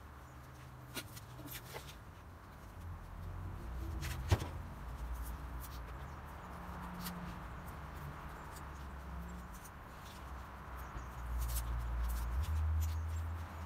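Bench grinder running with a wire wheel, a small metal part held against the wheel and wire-brushed clean: a steady motor hum under a scratchy hiss, with scattered clicks and one sharp click about four seconds in.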